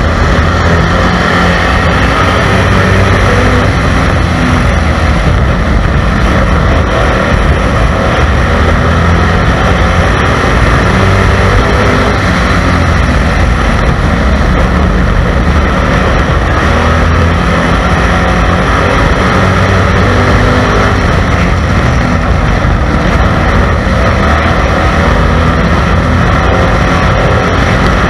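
Stock car engine running hard at racing speed, heard on board the car, loud and continuous, its pitch rising and falling every few seconds through the turns.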